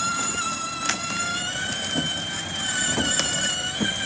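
Electric drive motors of a kids' ride-on toy tractor, upgraded 24-volt motors here run from a 12-volt battery, whining steadily as it drives along, the pitch shifting slightly. A couple of sharp ticks come about one second and three seconds in.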